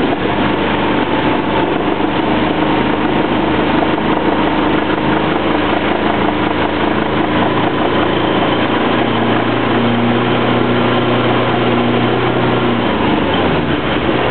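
Sailboat engine running steadily, with a whine over it. The whine's lower tone drops slightly in pitch about nine seconds in.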